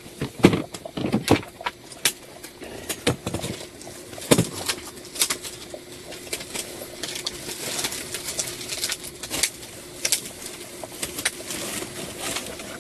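Frozen fen pi (mung-bean starch sheets) crackling and snapping as they are pulled and torn apart by hand, with many sharp, irregular cracks.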